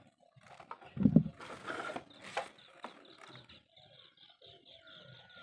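Handling noise of the mouse and its packaging: light clicks, a thump about a second in, then a short rustle. A faint, rapid, high-pitched chirping starts about two seconds in and keeps going.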